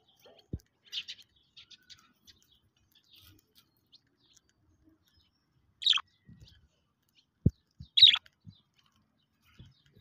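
Budgerigars chirping: two loud, short calls falling in pitch about six and eight seconds in, with quieter chirps about a second in. Faint clicks of seed being husked by a budgie feeding from a hand, and a couple of soft low knocks.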